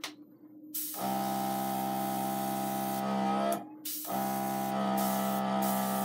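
Airbrush blowing a stream of air onto wet alcohol ink, a steady hiss with a humming tone underneath, in two long bursts with a short break about three and a half seconds in.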